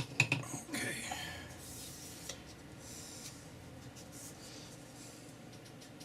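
Handling of board and paper on a work table: a few sharp knocks near the start, then about a second of scraping and rustling, with fainter rubbing sounds after.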